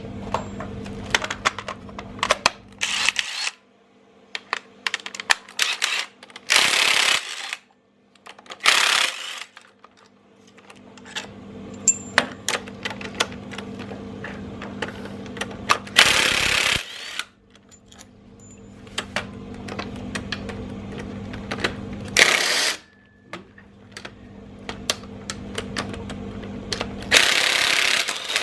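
Hand socket ratchet clicking in quick runs, with sharp metallic clinks of tools and parts, as bolts are undone on an engine being stripped.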